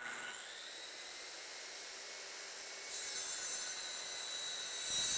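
Circular saw running and cutting through a small block of wood as it is pushed along an aluminium guide rail, with a steady high whine. It gets louder about three seconds in and again near the end.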